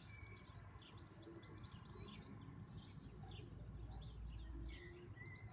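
Small birds chirping and twittering, faint and continuous, many short quick notes. A low rumble comes in for about a second around the middle.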